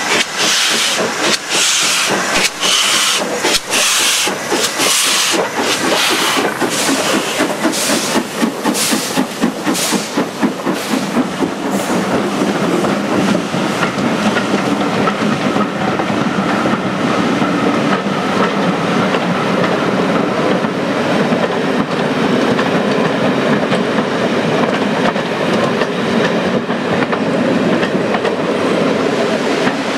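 Steam locomotive working a train past at close range, its exhaust beating steadily with a hiss of steam. About twelve seconds in, the beats give way to the coaches rolling by, their wheels clattering rhythmically over the rail joints.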